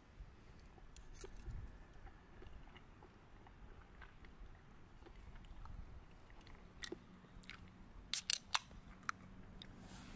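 Light clicks and taps from handling a drinks can and grill gear, with a quick cluster of sharper clicks about eight seconds in.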